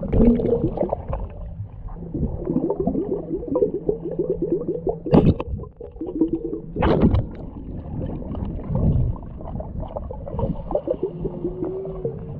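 Gurgling water heard underwater, with a rapid run of short falling tones and two sharp bursts, about five and seven seconds in.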